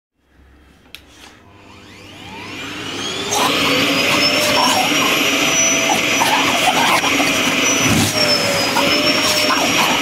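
A vacuum cleaner starts after a click about a second in. Its motor whine rises in pitch as it spins up over a couple of seconds, then runs steadily and loud. The pitch sags briefly and recovers near the end.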